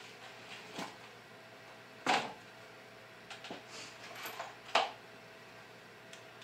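Handling noise: a few short knocks and clicks as a small cordless screwdriver and screws are handled at a workbench, the loudest knock about two seconds in.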